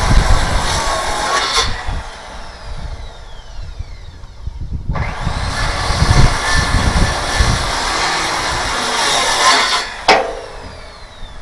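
Power saw cutting wood twice: the cut stops sharply just before two seconds in, the blade winds down with a falling whine, and the saw starts up again for a second cut that stops about ten seconds in, winding down the same way.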